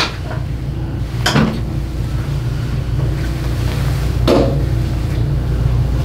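Steady low rumbling noise, with two brief soft rustles about a second in and about four seconds in.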